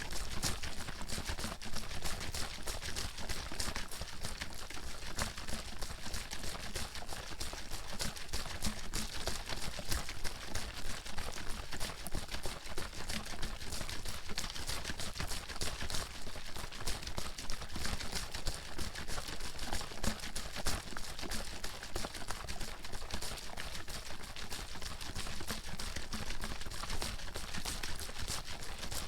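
Water bottle being shaken continuously, the water sloshing inside with a rapid, uneven run of knocks and splashes.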